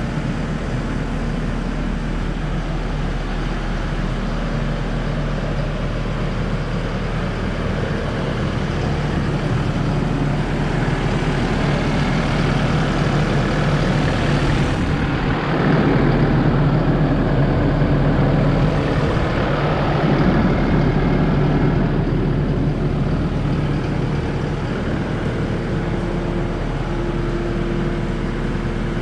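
Kubota SVL97-2 tracked skid steer's four-cylinder turbo-diesel running steadily. It grows louder through the middle, peaking twice, then settles back to a steady idle.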